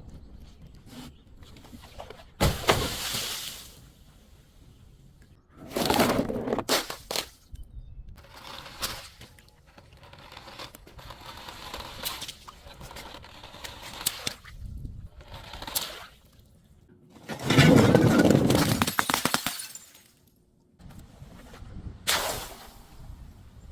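Glass bottles breaking and crunching in a series of bursts, the longest and loudest lasting about two seconds a little past the middle, with smaller crackles of glass between them.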